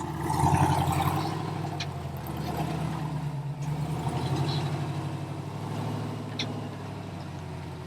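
Off-road 4x4's engine idling steadily, with a slight rise in revs about half a second in.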